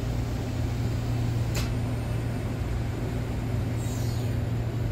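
Steady low machinery hum, with two short, high scraping zips as thin molybdenum EDM wire is drawn through the wire guide; the second zip, about 4 s in, falls in pitch.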